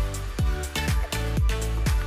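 Background music: an electronic dance track with a deep kick drum beating steadily about twice a second under sustained synth tones.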